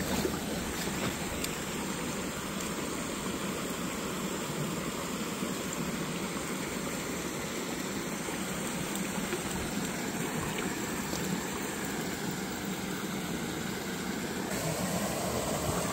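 Small woodland stream rushing over rocks and low cascades: a steady, even rush of water that grows a little fuller near the end.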